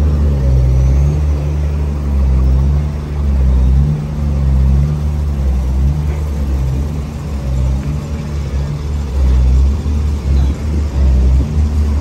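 Heavy diesel engine of a MAN truck running steadily, a continuous low drone whose pitch wavers slightly.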